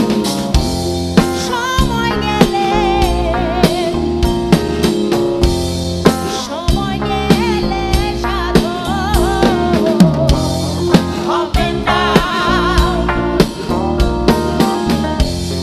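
Live band playing a Bengali folk song: a woman sings a slow melody with a wavering vibrato over a rock drum kit with snare and bass drum, and electric guitar and bass.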